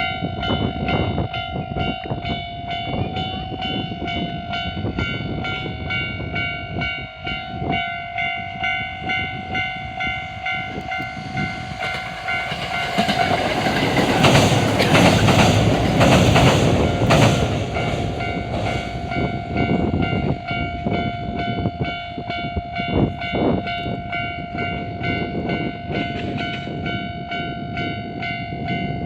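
Level-crossing warning bell ringing steadily in a fast, even repeat throughout. About twelve seconds in, a Kintetsu 80000 series Hinotori electric limited express train rushes past for about seven seconds, its wheels clacking over the rail joints, while the bell keeps ringing.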